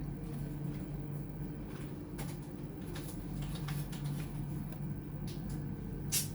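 Scattered small clicks and taps over a steady low hum, with the sharpest click near the end.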